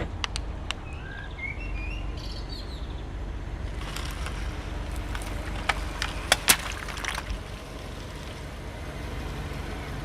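Car tyre rolling over a water balloon filled with Orbeez, the engine running with a low steady rumble. A few sharp pops and cracks come about four to seven seconds in, the loudest near the end of that stretch. Birds chirp about a second in.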